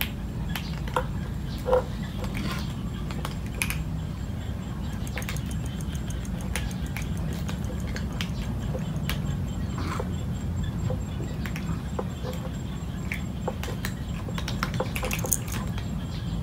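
Background ambience: a steady low rumble with scattered small clicks and ticks.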